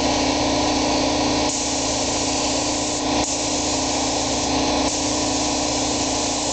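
Air-fed paint spray gun hissing as it lays a tack coat of epoxy primer. The hiss steps up and down every second or two as the trigger is worked, over a steady mechanical hum.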